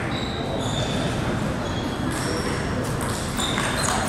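Room noise of a table tennis playing hall, with a few brief, high-pitched squeaks scattered through it.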